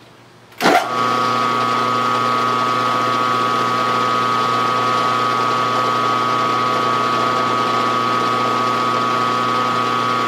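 Milling machine spindle switched on with a sharp click about a second in, then running steadily with a motor hum and a gear whine, its head shifted into low gear.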